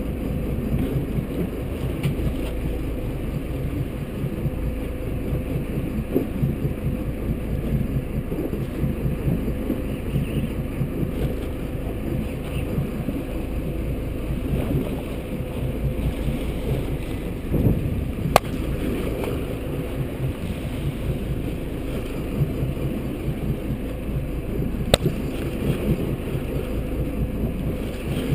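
Steady low rumble of a small boat's outboard motor with wind buffeting the microphone, and two sharp ticks in the second half.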